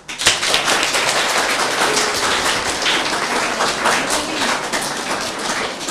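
Audience applauding, many hands clapping at once; it starts abruptly and keeps a steady level.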